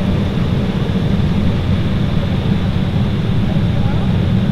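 Steady, loud cabin rumble of an Embraer 190 airliner with its General Electric CF34-10E turbofan engines running, heard from a window seat near the front of the cabin.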